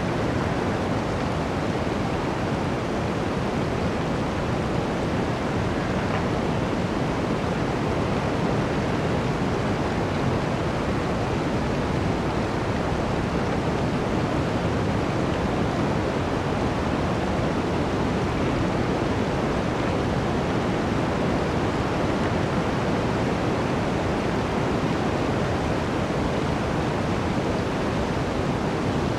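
Blizzard wind blowing through a forest: a steady, continuous rushing noise with no distinct gusts or breaks.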